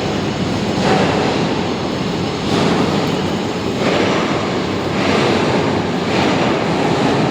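Wind buffeting the microphone: a loud rushing noise that swells every second or so.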